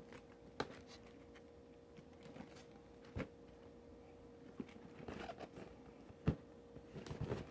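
Cardboard shoebox being handled and turned over in the hands: a few faint knocks and scuffs of fingers and cardboard, a second or more apart.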